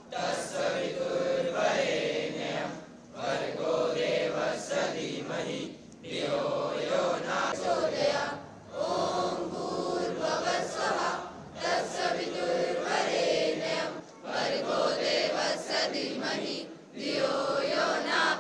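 A group of school students chanting a prayer together in unison, in phrases of about three seconds with short pauses for breath between them.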